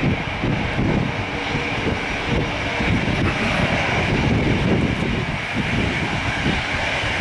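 The CFM56 turbofan engines of an Airbus A320-214 running at low taxi thrust: a steady high whine over a continuous low rumble.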